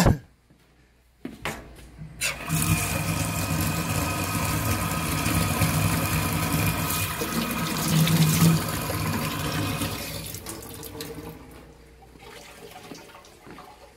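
A sharp thump right at the start, then a faucet runs hard into a stainless steel sink for about eight seconds, a steady rush of water with a hum under it, before tailing off near the end.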